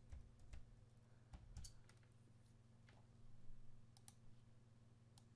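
Faint computer keyboard and mouse clicks: scattered sharp taps as a material name is typed in and confirmed, over a low steady hum.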